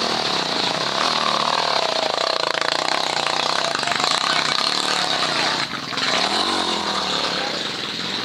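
Dirt bike engine revving up and down repeatedly as the bike climbs a steep, muddy trail, with a brief dip a little past halfway.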